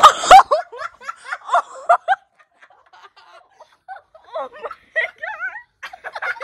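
A whipped-cream pie pushed into a boy's face with a wet smack right at the start, then boys laughing in short bursts, with one warbling laugh about five seconds in.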